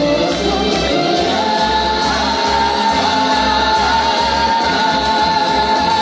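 A festival dance band plays live with singing over a steady bass beat. A voice holds one long high note from about a second and a half in.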